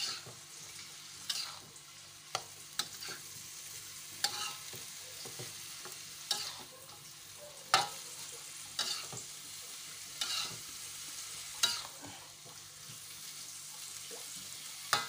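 Metal spatula stirring and scraping a bitter melon, egg and anchovy stir-fry in a metal wok, with a sharp scrape or clack every second or two. Under it, a steady faint sizzle of the food frying on high heat with a little added water.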